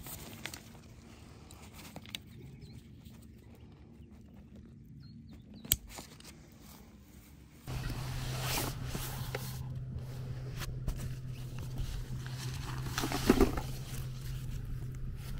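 Nylon tent and stuff-sack fabric rustling as gear is handled and packed, with a single sharp click about a third of the way in. After a sudden cut a little past halfway, a steady low hum runs under louder rustling as a stuff sack is pushed down into a drawstring pack.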